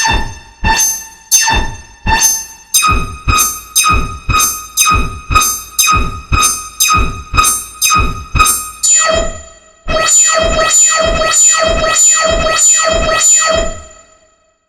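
Synthesized keyboard notes struck in a repeating pulse, about one and a half a second at first and then about three a second from about three seconds in. Around ten seconds in they turn into a sustained buzzy tone that pulses about twice a second, fading out near the end.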